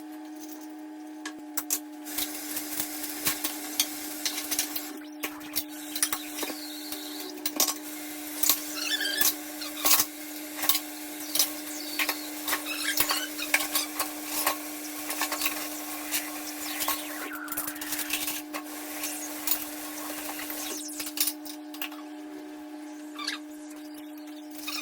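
Dishes, pots and cutlery clinking and clattering irregularly as they are washed by hand, over a steady hum.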